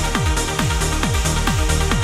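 Background electronic dance music in a trance style, with a steady kick drum beating several times a second under sustained synth tones.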